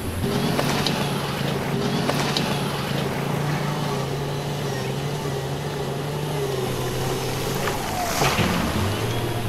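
Heavy diesel engine of a dump truck or wheel loader running steadily; its pitch drops and it briefly breaks up about eight seconds in before settling again at a lower pitch.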